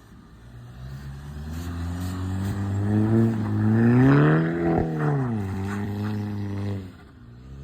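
Audi A4's turbocharged engine revving up under load, climbing for about three seconds to a peak, then easing off as the throttle is lifted, with turbo flutter on the lift-off. The engine settles and drops away sharply near the end.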